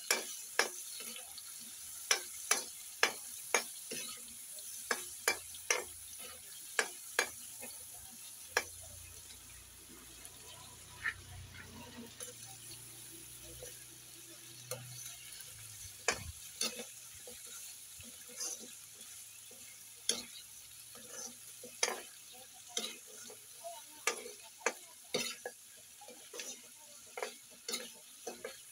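Metal spatula scraping and clanking against a steel wok as meat, onion and tomato are stir-fried, over a steady sizzle. The strikes come in runs, thick in the first several seconds, sparse through the middle, and thick again from about halfway on.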